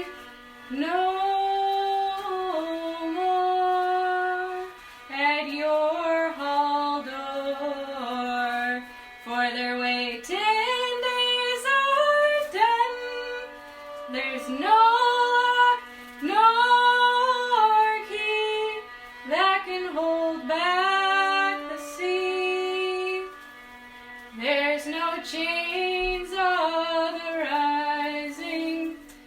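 Music: a slow, unaccompanied solo melody in short phrases, the notes often sliding up into pitch, with brief pauses between phrases.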